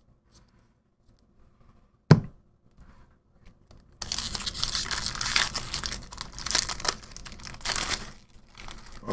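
A Magic: The Gathering booster pack's foil wrapper being torn open and crinkled by hand, starting about four seconds in and lasting some four seconds. A single sharp tap comes about two seconds in.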